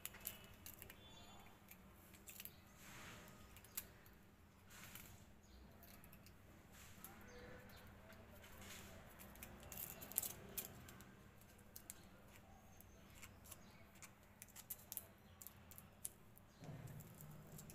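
Faint paper rustles and small scattered clicks from hands handling a folded glitter-paper bow while binding its middle with thread.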